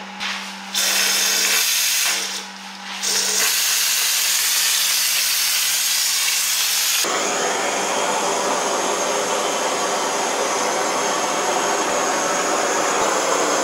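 Compressed air hissing through a gravity-feed hopper spray gun as it sprays the non-combustible insulation coating, in two stretches with a short break. About seven seconds in the hiss cuts off abruptly, and the steady hiss of a handheld butane torch flame burning against the coated foam board takes over.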